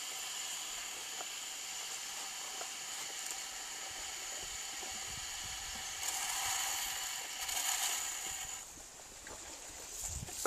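A homemade sound-sculpture instrument, a long wire strung beside a copper pipe, being played to make a steady hissing drone with several held tones. It swells about six seconds in and thins out a little before nine seconds, with a low knock near the end.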